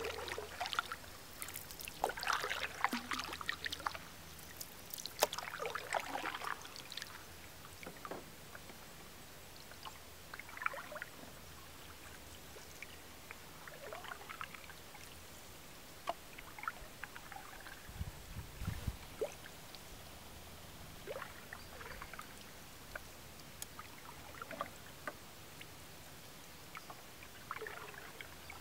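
Wooden canoe paddle pulling through calm lake water, with splashes and drips off the blade, over the first several seconds. Then softer, scattered drips and small laps of water against the gliding canoe's hull, with one dull low thump about two thirds of the way through.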